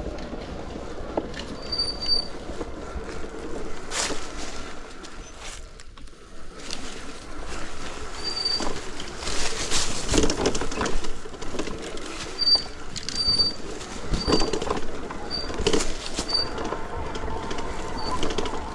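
Riding noise from an electric bike going off road: a steady rushing noise broken by knocks and rattles, louder in two stretches near the middle and later on. Short high bird chirps come through several times, mostly in the second half.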